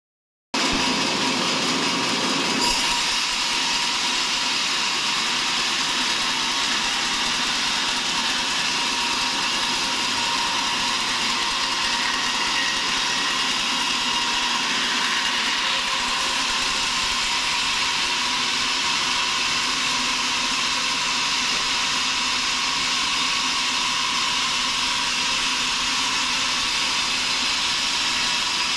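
Vertical band sawmill running and cutting lengthwise through a large log, a steady, even blade whine and saw hiss.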